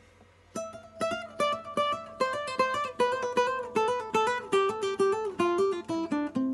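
Acoustic guitar music: a quick run of plucked notes that starts about half a second in, after near silence.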